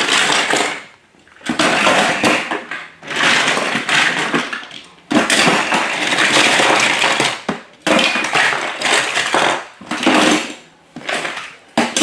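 Handfuls of diecast and plastic toy cars clattering and rattling as they are dropped into a plastic storage bin, in about seven separate bursts of a second or two each.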